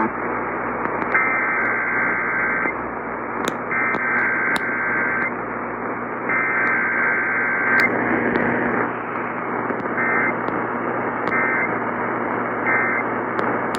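Emergency Alert System SAME data bursts, the buzzy two-tone digital code, received over a hissing, static-laden radio. Three long bursts of about a second and a half each come first, then three short bursts near the end, the end-of-message code.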